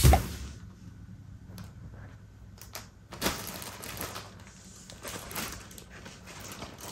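A loud thump as a cat pounces onto a paper gift bag, then the bag rustling and crinkling in short bursts as the cat pushes its head inside and noses around in it.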